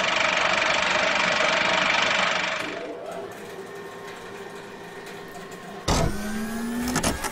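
Intro sound effects: a loud steady hiss with a faint held tone for the first couple of seconds, then a quieter stretch. About six seconds in there is a sudden rising mechanical whirr with sharp clicks.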